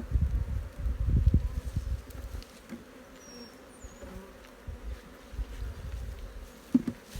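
Honeybees buzzing around an open hive as a frame of brood and bees is lifted out, a faint steady hum. Low rumbling noise dominates the first two seconds or so, then dies away.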